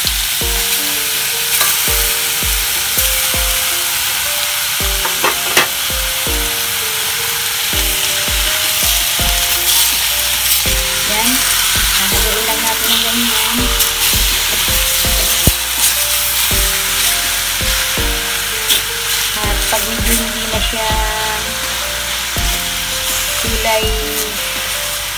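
Raw pork belly pieces sizzling steadily as they hit hot oil in a stainless steel wok with garlic and spices. A spatula stirs them and scrapes and knocks against the metal.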